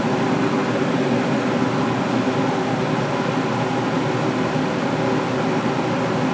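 Over-the-stove exhaust fan running steadily.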